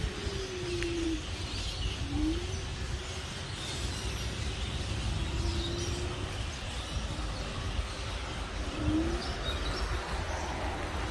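Electric scooter ride on a paved path: a steady low rumble of wind and tyres. A faint motor whine swells four times in short glides, falling once, then rising, then level, then rising again.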